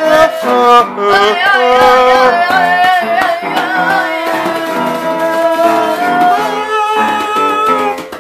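A young girl singing a wavering melody over an upright piano and a hand drum, with a wooden shaker; the playing dips briefly near the end.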